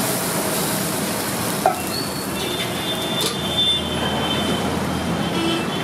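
Steady sizzling hiss of uttapams cooking on a hot flat iron griddle, with one sharp tap a little under two seconds in.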